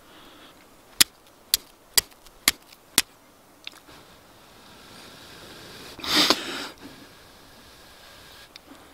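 Flint and steel: a C-shaped steel fire striker struck five times against a flint, about two sharp clicks a second, to throw sparks onto amadou tinder held on the stone. About six seconds in there is a short, breathy rush of air, the loudest sound.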